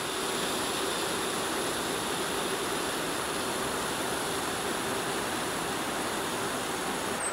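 Steady, even rushing background noise with a faint high-pitched whine that holds constant throughout.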